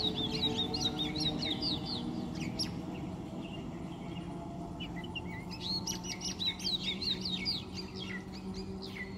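Small birds chirping in quick flurries, one near the start and another from about halfway in, over the low steady hum of an electric local train pulling away, which fades slowly.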